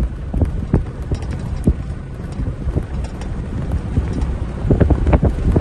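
A horse galloping on sand, its hoofbeats thudding in a quick uneven rhythm that grows louder near the end, over a low steady rumble of wind on the microphone.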